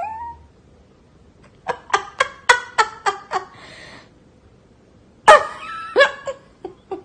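Cat meowing in a rapid run of short calls, then one sudden louder, longer meow about five seconds in, followed by a few more short ones.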